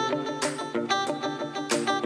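Background music: quick plucked-string notes over a steady beat, with a bright hissing hit about every second and a quarter.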